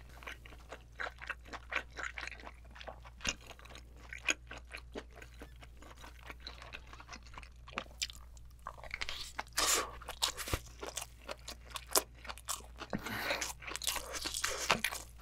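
A person chewing a big mouthful of braised spicy abalone close to the microphone: a steady run of small wet clicks. About eight seconds in, a spoonful of rice goes in and the chewing gets denser and louder.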